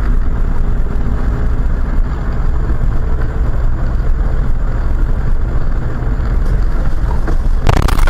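Car driving, with steady road and engine noise heard from inside the cabin through a dashcam. Near the end a sudden, louder rush of noise with knocks sets in.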